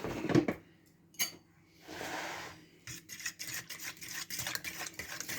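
A utensil stirring an egg and spice sauce in a bowl: a few clinks, a brief scrape against the bowl, then quick repeated light clinks as it is mixed.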